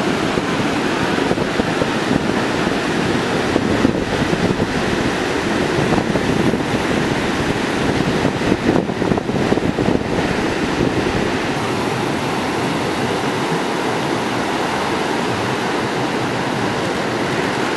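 Ocean surf breaking along the beach, a continuous wash of waves, with wind buffeting the microphone unevenly through the first half before it settles.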